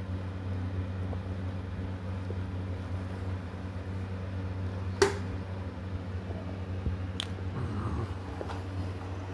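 A person chewing a mouthful of food over a steady low hum, with a sharp click about five seconds in and a fainter one about two seconds later.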